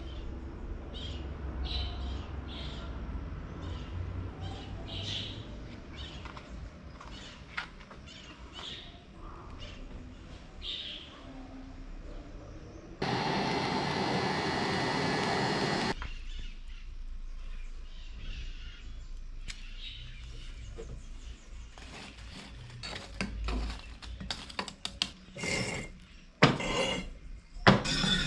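Fire in a brick forge flaring up with a loud, even rushing noise for about three seconds, starting and stopping abruptly. Near the end, firebricks are knocked together with sharp clacks as they are set in place.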